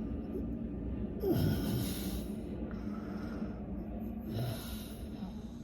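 Snoring: two long, noisy snoring breaths about three seconds apart, over a steady low hum.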